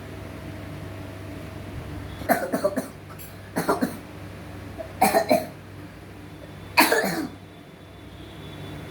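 A boy of about twelve coughing in four short fits of several quick coughs each, starting about two seconds in. The doctor judges it a chronic allergic cough in an acute flare-up.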